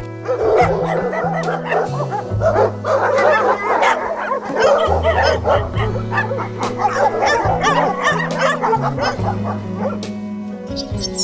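A team of harnessed sled dogs barking, yipping and whining over one another, many voices at once, until about ten seconds in. Background music with a steady bass line runs underneath.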